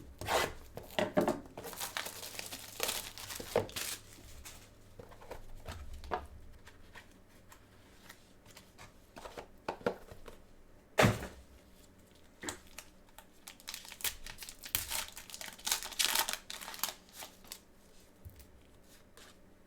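Plastic wrapping on a trading-card box crinkling and tearing as it is opened, in a few bursts of crackling. About halfway through there is one sharp snap.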